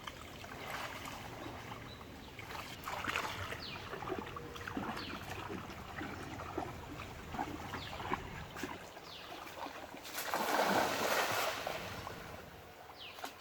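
Pond water splashing and sloshing as a cast net is worked, with scattered small splashes and a louder rush of splashing water about ten seconds in that lasts a second or two.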